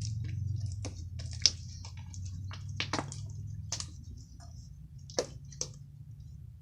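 Slime being squeezed and worked in the hands, giving irregular sharp clicks and pops over a low steady hum.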